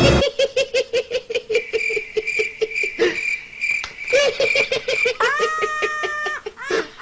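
A person laughing in rapid, evenly spaced bursts, breaking into a high held squeal about five seconds in.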